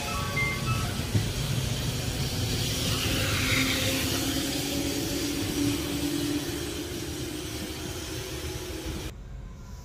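Tobu 6050 series electric train pulling out: a low rumble of wheels on rails with a motor whine that creeps up in pitch, fading as the train draws away. The sound cuts off sharply near the end.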